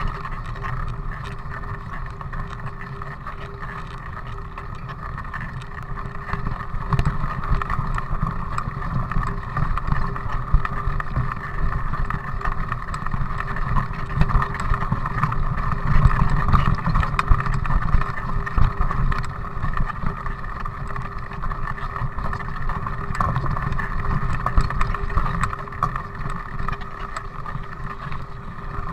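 Mountain bike rolling over a gravel and grass track, heard as a steady, muffled rumble with a constant hum through a camera carried on the bike or rider.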